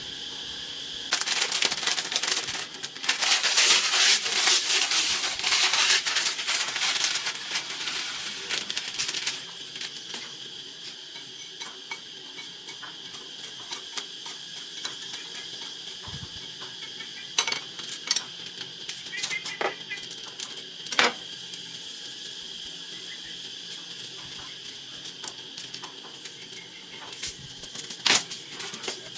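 Steady chrr of insects throughout, with a loud stretch of clattering and rustling handling noise from about one to nine seconds in, then scattered sharp clicks and knocks.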